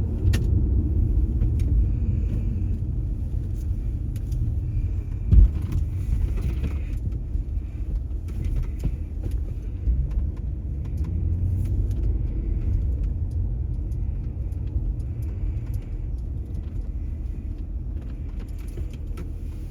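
Audi B5 S4 being driven: a steady low rumble of road and drivetrain noise, with one sharp thump about five seconds in.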